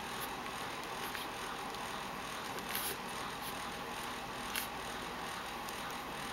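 Steady hiss of background noise with a few brief, soft clicks, the clearest about three seconds in and again at about four and a half seconds.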